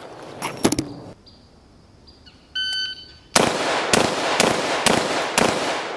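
A shot timer gives a single start beep, then a rifle fires five quick shots about half a second apart, the last one roughly 2.8 seconds after the beep.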